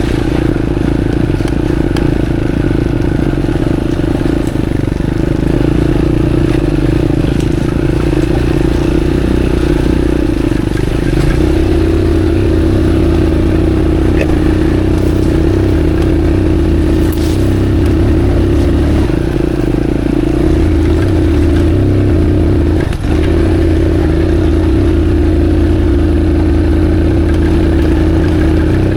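Motorcycle engine running steadily at low speed on a muddy off-road track, its note stepping up slightly about eleven seconds in and dipping briefly later.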